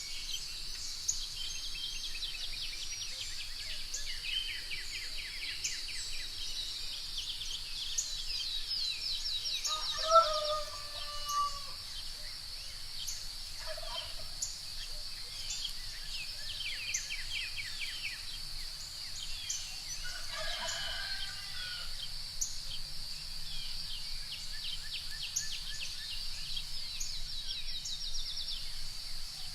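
Morning bird ambience: small birds sing repeated rapid trills over a steady high-pitched insect-like drone. A chicken calls briefly about ten seconds in, loudest of all, and again about twenty seconds in.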